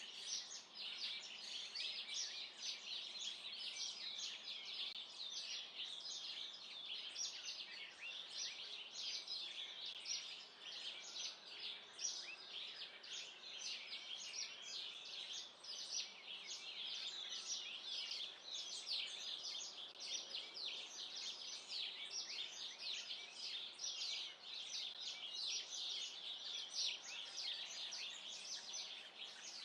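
A dense chorus of many small birds chirping continuously, with rapid short high chirps overlapping one another.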